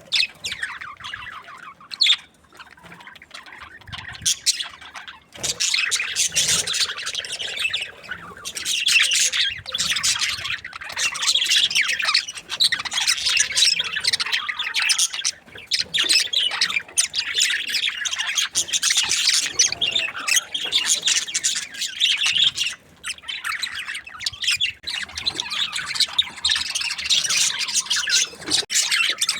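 A flock of budgerigars chattering, a dense run of fast chirps and squawks; it is sparser for the first few seconds, then a continuous chorus.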